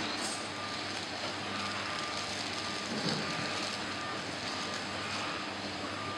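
Steady mechanical hum and hiss of a semi-automatic powder filling machine running, with a faint steady whine over it.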